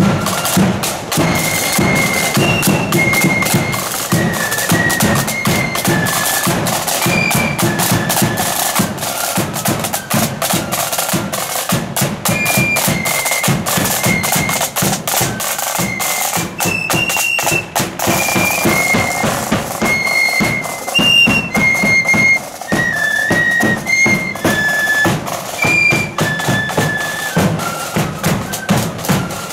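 Marching flute band playing a tune: high flutes carry the melody over rapid snare drumming and bass drum beats.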